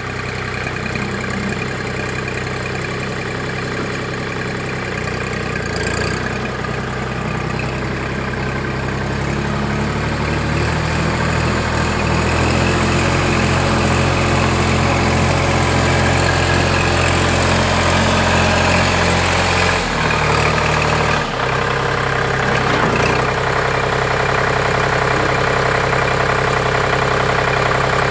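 Kubota L2502 compact tractor's diesel engine running, growing louder as the tractor drives closer over the first dozen seconds, with a brief dip in the engine sound about twenty seconds in.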